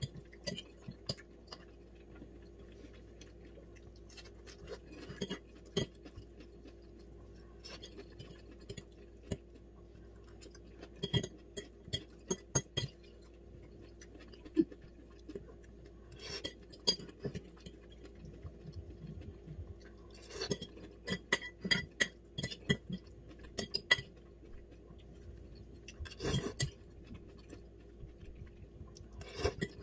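A metal fork clinking and scraping against a ceramic bowl in irregular bursts of sharp clicks, with a short ring after some of them, as forkfuls of sautéed cabbage are picked up, with chewing between bites.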